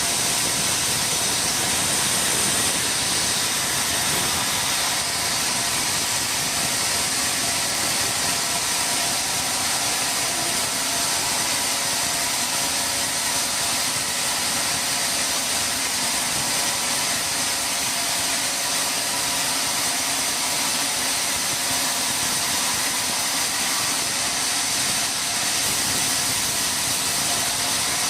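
Sawmill machinery running steadily without a break, a continuous high hiss with faint steady tones underneath.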